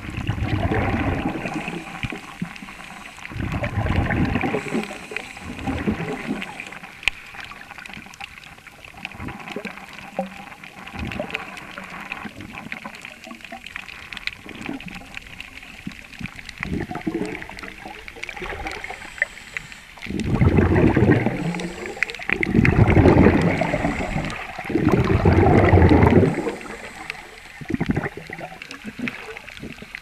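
Underwater sound of air bubbles and moving water: irregular gurgling surges of bubbling, with a run of longer, louder bursts about two-thirds of the way through.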